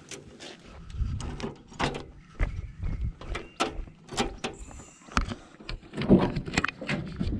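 Knocks and clatters of scrap being handled: a metal appliance and a plastic extension lead picked up and knocked against a wire mesh basket, irregular, loudest about six seconds in.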